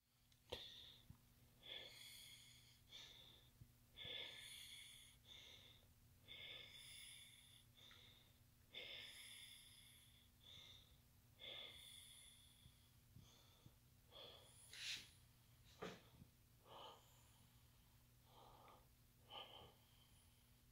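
Hardwood floorboards squeaking and creaking underfoot, a short faint squeak with each step, repeating about every one to two seconds at a walking pace.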